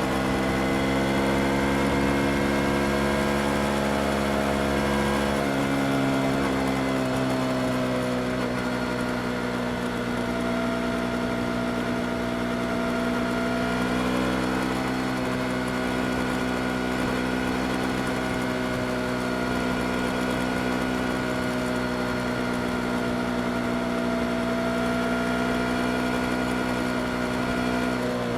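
Yamaha R25 motorcycle's 250 cc parallel-twin engine running at a fairly steady speed; its pitch eases down over the first five seconds or so, then holds nearly level.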